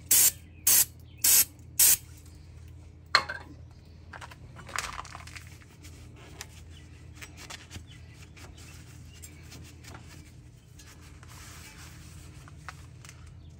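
An aerosol spray can sprayed onto a rusty wheel hub in four short hissing bursts in quick succession, clearing off excess rust. A click follows, then a rag rubbing the hub faintly.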